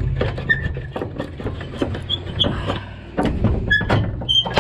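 Spring-loaded steel slide-bolt latch on a truck's removable side board being worked by hand: irregular metal clicks and knocks, with several short high squeaks as the rusted pin slides in its guide.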